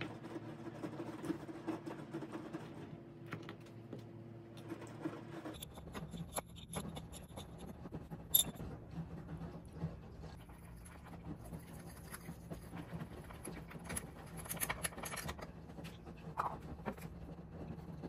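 Small kitchen handling sounds: soft scratches, taps and clicks as a knife cuts a loaf cake on a wooden board and a metal spoon stirs lemon icing in a small glass. A low steady hum stops about five seconds in.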